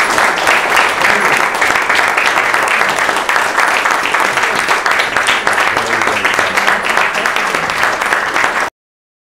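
Audience applauding: dense, steady clapping from a room full of people, which cuts off abruptly near the end.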